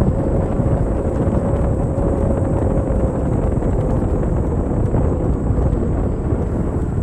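Steady wind rumble on the microphone from riding along a paved path, with a faint steady hum that fades out about five seconds in.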